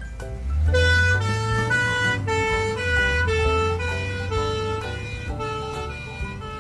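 Ambulance siren alternating between a high and a low note about every half second, over a low engine rumble, easing off slightly toward the end.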